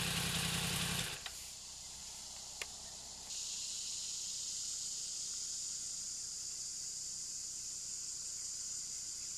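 Motorcycle engine idling, then switched off about a second in. A single click follows, and from about three seconds in a steady high-pitched hiss.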